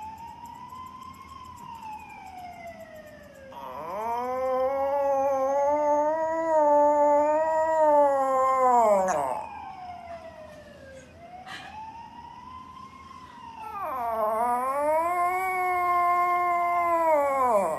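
Small poodle puppy howling: two long drawn-out howls, each rising and then falling in pitch, each preceded by a fainter, thinner wail.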